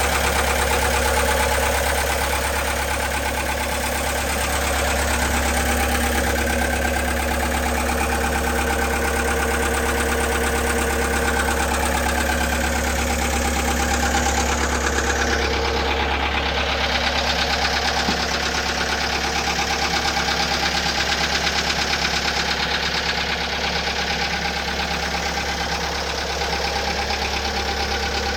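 Gehl 6635 skid steer's diesel engine running steadily.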